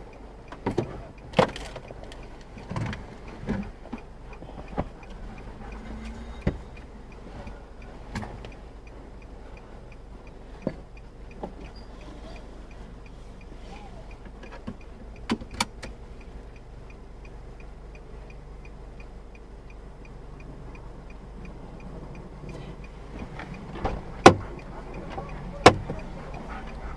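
Inside a stopped car with the engine idling: a steady low hum, the faint regular ticking of the hazard flasher, and a dozen or so scattered sharp clicks and knocks from someone moving about in the cabin.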